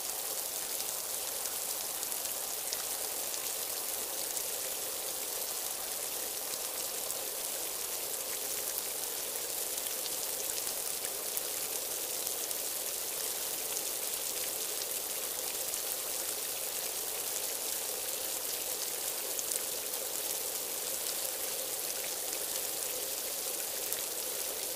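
Steady rain falling: an even, unbroken hiss of rain.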